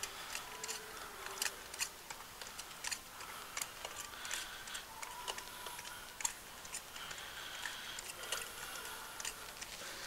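Faint, irregular small clicks and light metallic taps from a spark plug socket and extension being worked by hand in an engine's spark plug well.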